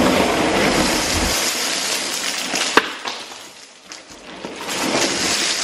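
A boxful of plastic fidget spinners poured out onto a bed in a long, dense rattling rush. It eases off midway, with one sharp clack about three seconds in, then builds again near the end.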